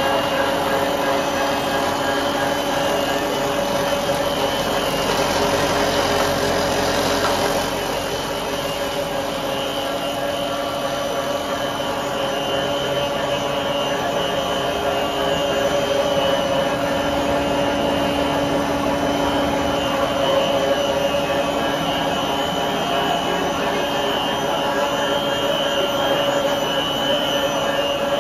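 DP85-III twin-screw corn puff extruder running in production: its electric drive motor, gearbox and screws make a steady machine hum with a constant high whine. The noise grows briefly louder and hissier about five to eight seconds in.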